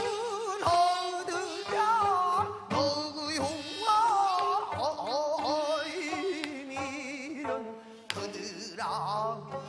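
Male pansori singer singing with wide, wavering vibrato, accompanied by a traditional Korean orchestra.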